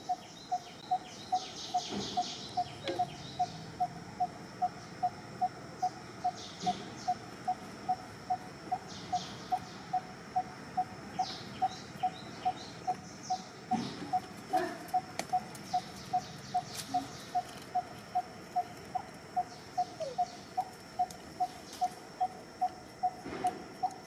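Birds calling: one bird repeats a short single note at an even pace, about two and a half times a second, while other birds give scattered bursts of higher chirps.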